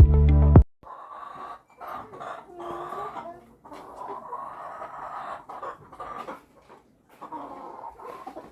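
Laying hens clucking and calling in irregular bursts, after a music track cuts off suddenly under a second in.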